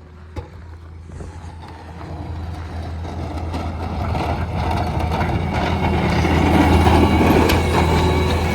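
Cat 289 compact track loader's diesel engine running under load while it plows snow, growing steadily louder over several seconds as the machine comes closer. A sharp knock sounds about half a second in.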